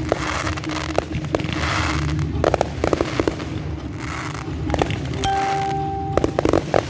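Fireworks display: shells bursting in sharp bangs and crackles over a low rumble, with quick clusters of reports about two and a half and three seconds in and again just before the end. A steady whistle sounds for about a second, starting about five seconds in.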